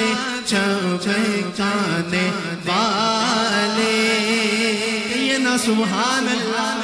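A man singing a naat, an Urdu devotional poem in praise of the Prophet, into a microphone; short phrases at first, then from about three seconds in one long held line with wavering ornaments.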